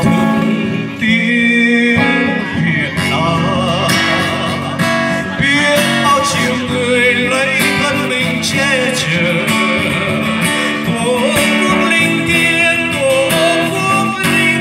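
A man singing into a microphone while playing an acoustic guitar, amplified through a PA system. The voice carries a wavering vibrato on held notes over the guitar.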